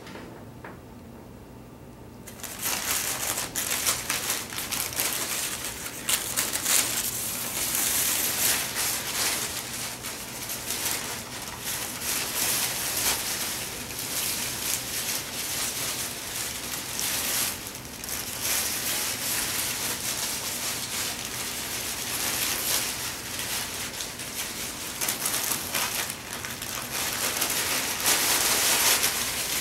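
Crumpled brown packing paper crinkling and rustling as a puppy plays in it and tugs at it. The crinkling starts about two seconds in, goes on without a break, and is loudest near the end.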